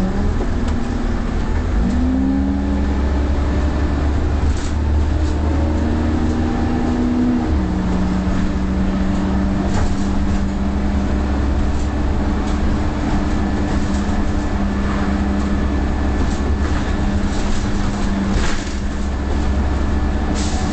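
Diesel engine of a Leyland Olympian 11m double-decker bus pulling along, heard from inside the bus. The engine note climbs about two seconds in, then drops about seven seconds in as the gearbox changes up, and then runs steadily.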